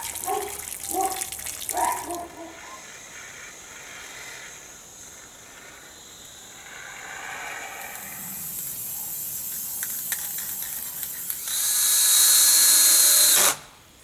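A few harsh bird caws in the first two seconds, then a cordless drill running for about two seconds near the end, steady and loud, its whine dropping as it stops abruptly.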